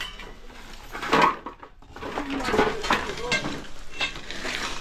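Clattering and scraping as rubble, pipes and cardboard are shifted by hand and with a metal rod, with a loud knock about a second in.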